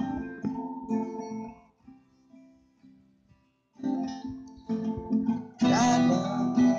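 Twelve-string acoustic guitar being strummed. The opening chords ring and die away to near quiet about two seconds in, then the strumming starts again and grows loudest near the end.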